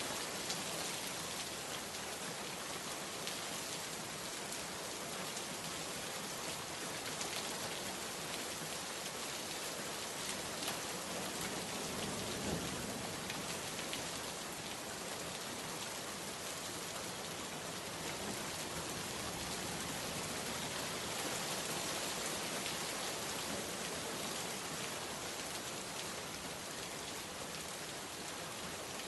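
Heavy rain falling steadily: a dense, even hiss of drops on surfaces.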